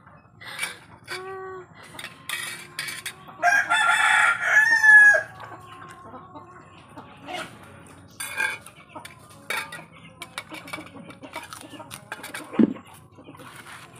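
A rooster crowing once, a long crow of nearly two seconds starting about three and a half seconds in, with a shorter chicken call a couple of seconds before it.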